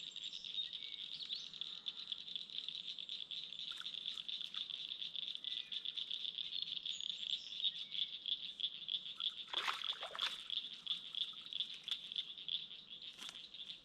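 Steady high-pitched chorus of crickets and other insects trilling on a summer evening. About ten seconds in there are two short, noisy sounds, and a third follows shortly after.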